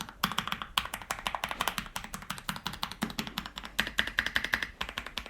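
Aula F68 mechanical keyboard being typed on quickly: a continuous rapid run of keystrokes, subtle rather than sharply clicky.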